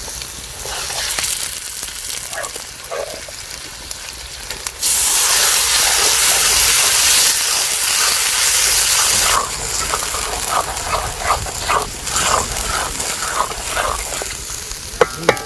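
Shallots frying in hot groundnut oil with a steady sizzle; about five seconds in, wet ground masala paste hits the hot oil and sizzles loudly for about four and a half seconds, then settles back to a rougher, crackling fry.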